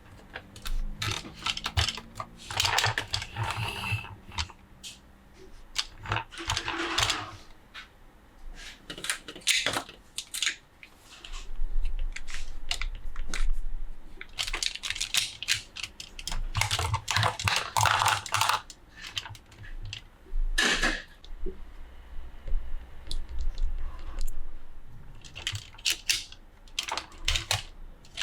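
Plastic toy parts and packaging being handled: irregular clicks, taps and light clatter of hard plastic, with several bursts of rustling and crinkling.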